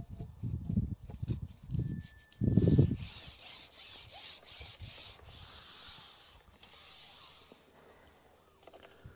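Handling noise from an angler moving on his seat box and handling his pole: a few dull low thuds, then rhythmic scratchy rubbing that fades out near the end.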